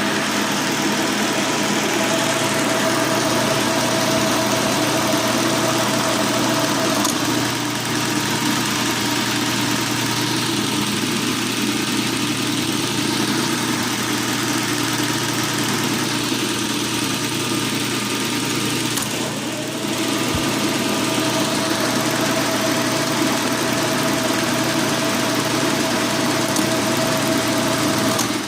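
Hendey metal lathe running under power through its freshly repaired clutch: a steady machine drone with a thin whine. The whine drops away about seven seconds in and comes back near twenty seconds, where the level briefly dips.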